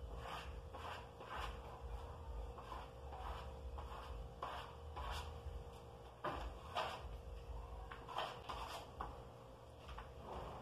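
Plastic spatula scraping a wet coat of gypsum plaster and wall putty across a wall in repeated short strokes, about one or two a second, as the finishing coat is smoothed.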